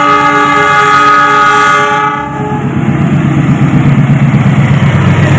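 Diesel locomotive sounding its multi-note air horn in one long blast that stops about two seconds in. The engine's low rumble and the clatter of the train's wheels over the rails follow as it approaches.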